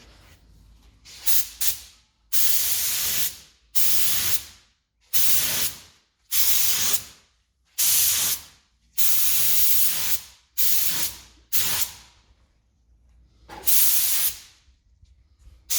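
Clear coat sprayed onto a car hood in about ten short spray bursts, each up to about a second long, with brief pauses between passes.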